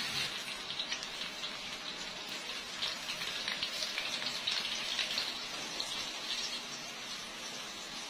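Liquid poured from a glass into a hot wok of oil and spices, boiling up with a dense, crackling sizzle of bursting bubbles. Loudest at the start, then steady, easing a little toward the end.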